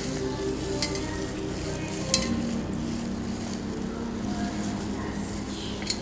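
A plastic-gloved hand tossing and squeezing shredded pork skin with toasted rice powder in a stainless steel bowl: a steady crackly, rustling scrunch with three sharp clicks.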